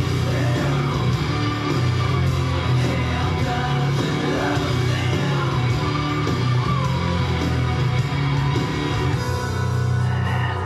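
Song with a singer playing loud for a burlesque routine, with a heavy steady bass.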